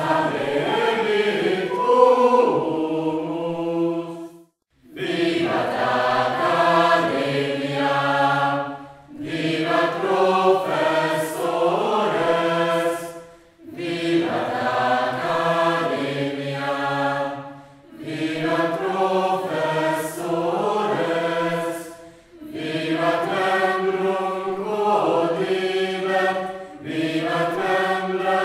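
A choir singing held chords in phrases about four seconds long, with a short silence between phrases.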